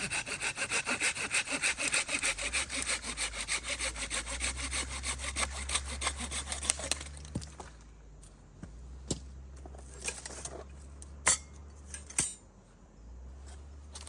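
Hand saw cutting through firewood in quick, even back-and-forth strokes, about four or five a second. The sawing stops about seven seconds in, followed by a few scattered clicks and two sharp knocks of wood.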